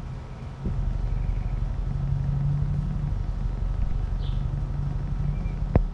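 Bass-heavy low tones played loud through a Dayton Audio ND105 4-ohm driver from a PAM8403 mini amplifier with bass boost: a buzzy, rumbling sound. It steps up in level about half a second in, then a sharp click and a brief cut-out come near the end.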